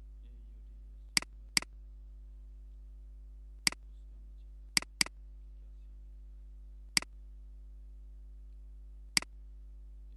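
Computer mouse button clicking: seven sharp single clicks at irregular intervals, two of them in quick pairs, over a faint steady electrical hum.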